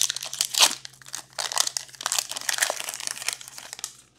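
Foil wrapper of a 2022-23 Upper Deck Artifacts hockey card pack being torn open and crinkled as the cards are pulled out: crackling that is loudest in two rips near the start, then runs on steadily until just before the end.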